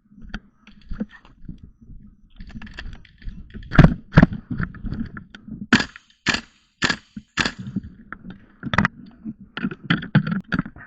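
Gas blowback airsoft rifle shots, fired singly at irregular intervals: sharp cracks, a few faint ones at first, then about a dozen louder ones, thickest near the end.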